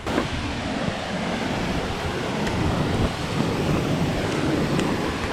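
Steady rushing of water from river cascades and waterfalls, with some wind buffeting the microphone.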